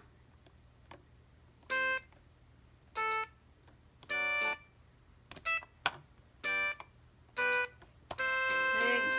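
Anpanman light-up toy keyboard sounding single electronic notes one at a time, about a second apart, as its keys are pressed. There are a few clicks in between, and near the end a stretch of continuous music starts from the toy.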